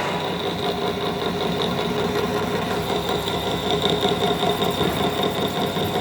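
Metal lathe running steadily, a continuous machine hum with a high, even whine over it.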